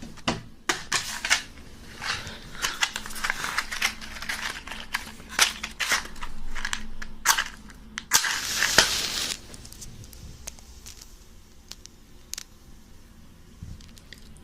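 Handling noises: a run of clicks, crinkles and rustles, with a louder hiss lasting about a second some eight seconds in, then only scattered clicks.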